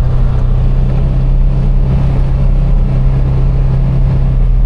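Polaris Ranger XP 1000 side-by-side driving along, its twin-cylinder engine running with a steady low drone.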